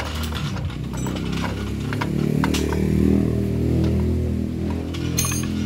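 Light metal clicks and clinks of a wrench working the axle nut of a wheelbarrow wheel, with a short bright metallic jingle near the end. Under it is a steady low engine-like hum that swells around the middle.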